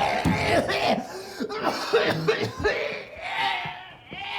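A man's stifled, held-back coughing: several short choked coughs and throat noises in quick succession, then a longer strained sound near the end, as he tries to pinch off a cough.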